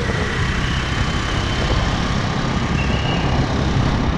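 Steady rumble of road traffic and a two-wheeler's engine while riding along a city street.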